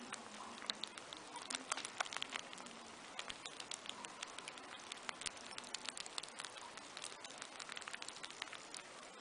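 Baby rabbits nibbling and chewing a peeled banana close up: quick, irregular little clicks over a faint hiss.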